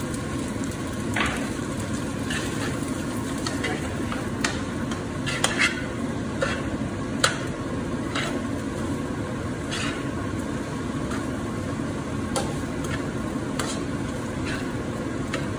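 Rice noodles and vegetables stir-frying in a wok: a steady sizzle under irregular clicks and scrapes of the utensil against the pan as the noodles are tossed.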